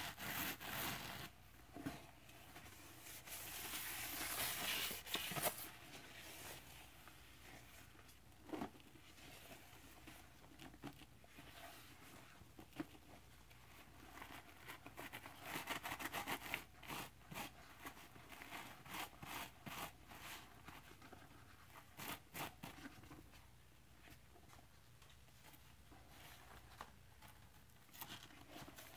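Rubber-gloved hands scooping and rubbing dry scouring powder (Ajax and Comet cleanser with baking soda) and sponges in a plastic bucket: scratchy rubbing and crunching with small clicks, coming in short spells between pauses. The longest and loudest stretch of rubbing comes a few seconds in.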